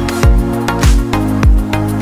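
Background electronic music with a steady kick-drum beat, about one deep hit every 0.6 seconds, over held synth chords.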